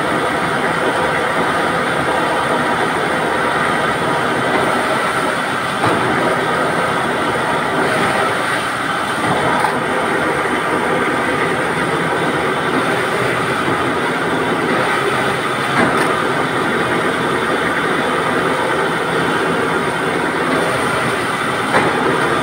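Sheepskin fleshing machine running: its spinning bladed cylinder and water spray make a loud, steady mechanical noise, with a few brief knocks scattered through it.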